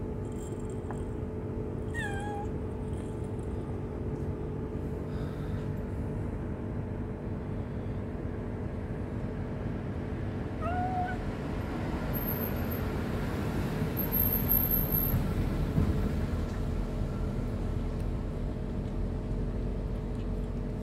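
A tabby kitten meows twice, short calls about two seconds in and again about ten seconds in, over a steady low background hum that swells a little around the middle.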